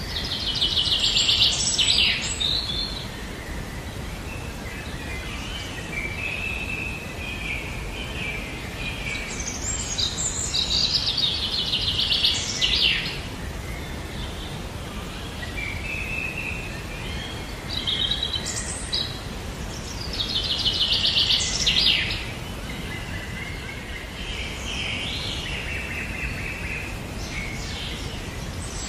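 A songbird singing: a loud, fast, rattling trill lasting about two seconds, repeated roughly every ten seconds, with softer short phrases in between, over a steady background hiss.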